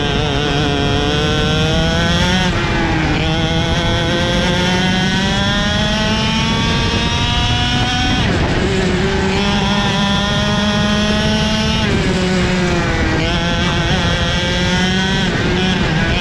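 A KZ shifter kart's 125cc two-stroke engine racing at full throttle, its pitch climbing steadily under acceleration and dropping sharply a few times, at about three, eight and twelve seconds in, as the driver lifts or changes gear.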